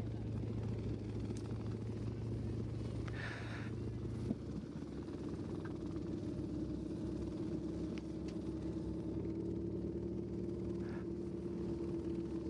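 Steady engine drone of the motor vehicles that follow a bike race. About four seconds in there is a short click, and the sound shifts to a steadier, higher engine note.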